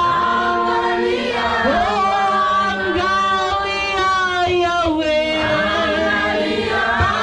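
Church praise and worship team singing together as a choir, several voices in harmony over a steady low note, with a few low thumps.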